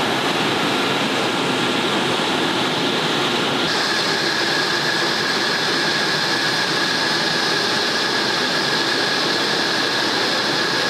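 Jet turbine running steadily: a high, even whine over a rushing noise. The whine steps to a slightly higher pitch about four seconds in.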